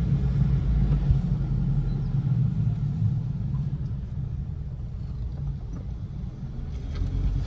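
Steady low rumble of a 2008 Hummer H3 creeping through a sharp turn with its four-wheel drive locked, the drivetrain binding until the truck feels locked up.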